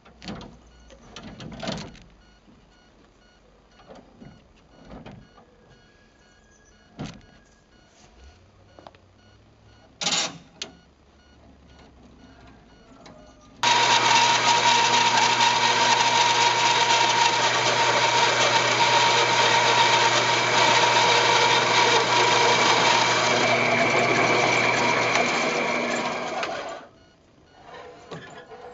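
A few scattered knocks and clicks, then an electric power tool starts abruptly and runs steadily with a whine and a low hum for about thirteen seconds before winding down near the end.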